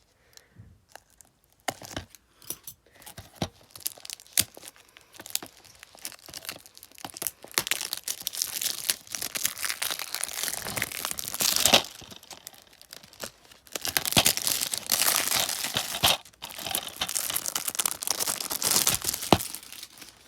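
Plastic shrink-wrap on a DVD case being picked at, torn and peeled off, crinkling. Scattered sharp clicks come first, then longer stretches of crackling tearing.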